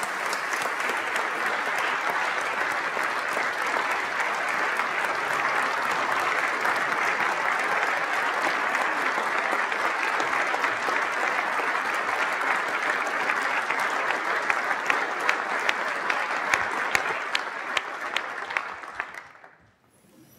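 Audience applauding steadily for about twenty seconds, thinning to a few separate claps and dying away near the end.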